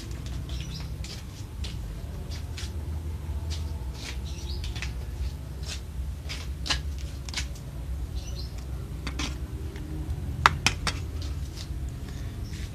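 Knife slicing a breadfruit: irregular crisp cuts and clicks of the blade, with two sharper clicks about ten and a half seconds in, over a steady low hum.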